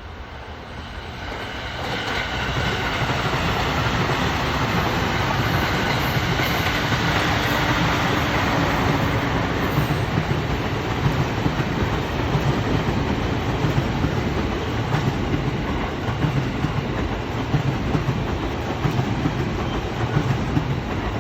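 Sotetsu 12000-series electric train passing close by, growing louder over the first two seconds and then running loud and steady. High steady tones sound in the first half, and rhythmic clickety-clack of the wheels over the rail joints fills the second half.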